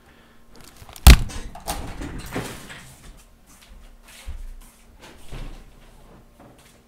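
A sharp thump about a second in, then rustling and a few softer knocks as a person gets up out of a chair and moves away.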